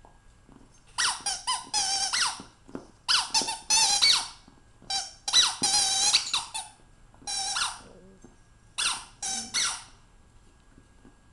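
A dog's rubber squeaky toy squeaked over and over as the dog chews it, in about five quick runs of high-pitched squeaks with short pauses between.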